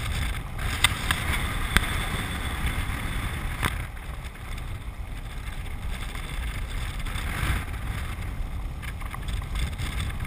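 Land yacht sailing across a dry lake bed: wind rushing over the camera microphone and steady rolling noise, with a few sharp clicks in the first four seconds.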